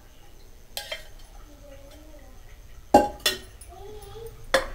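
Steel utensils and stainless-steel pots clinking in a kitchen: a few sharp metallic clinks, the loudest about three seconds in.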